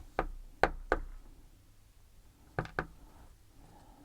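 Five sharp knocks on a hard work surface while pins are taken out of an American Lock 1100 padlock's core. Three come within the first second, then two close together about two and a half seconds in.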